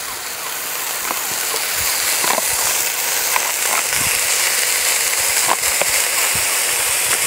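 Shredded spinach being tipped into a hot pot of sautéed onions, sizzling with a steady hiss that builds about a second in, with scattered crackles.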